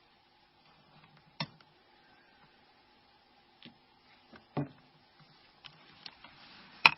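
Scattered small clicks and taps from hand tools and small parts being handled during mobile phone disassembly, four or five sharp ones with the loudest near the end, over a faint steady hum.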